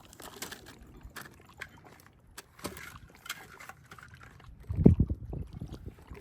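Water sloshing and splashing with scattered knocks, and a cluster of low thumps about five seconds in.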